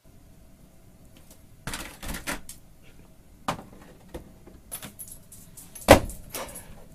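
A pet-door flap clattering and a long rawhide bone knocking against the door as a dog pushes through with it crosswise in its mouth: a series of sharp knocks and rattles, the loudest about six seconds in.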